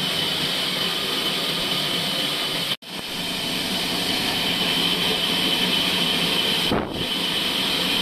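Horizontal band sawmill running steadily: a motor hum with a steady high whine from the blade. The sound cuts out for an instant about three seconds in and comes straight back.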